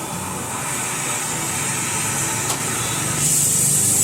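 Mahindra 275 DI tractor's diesel engine running steadily, with a single click about two and a half seconds in and a high hiss that grows louder about three seconds in.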